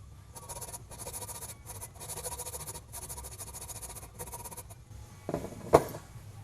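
Hacksaw cutting through a small frame standoff in a series of about six short rasping strokes, then one sharp click near the end.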